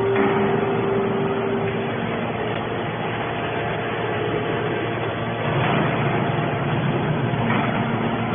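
Hydraulic scrap metal baler running: a steady mechanical drone with a held tone that fades out about two seconds in, and louder swells of noise later on.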